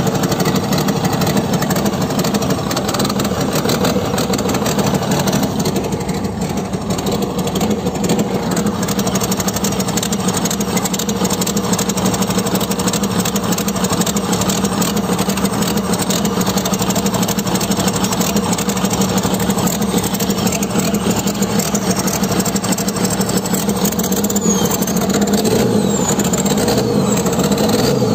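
Komatsu excavator's diesel engine running steadily, an old machine whose running the uploader likens to a cough. A few faint rising whines come in near the end.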